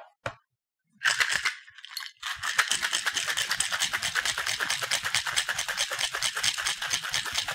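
Ice rattling inside a two-piece cocktail shaker as it is shaken: a short burst about a second in, then a rapid, even rattle from about two seconds in.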